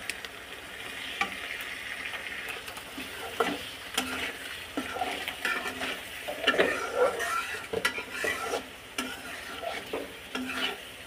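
Metal spatula stirring and scraping a thick spiced duck and potato curry around a karahi, with frequent light knocks against the pan, while the masala sizzles in the oil. This is the masala being fried down (koshano) for a kala bhuna.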